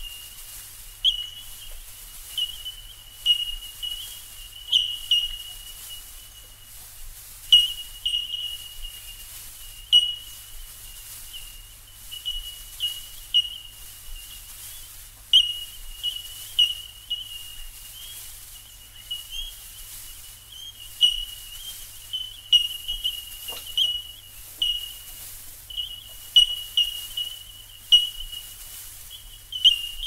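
Bell miners calling: a steady high ringing of many overlapping bell-like notes, with louder single pings standing out at uneven intervals of about one to two a second.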